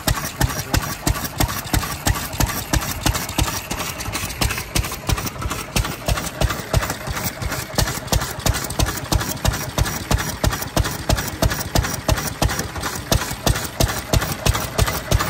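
Kubota E6 six-horsepower single-cylinder kerosene stationary engine running steadily, its firing strokes coming as an even train of sharp beats several times a second.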